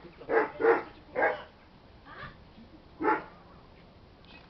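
A dog barking out of sight in short single barks: three close together at the start, then a fainter one and another spaced about a second apart.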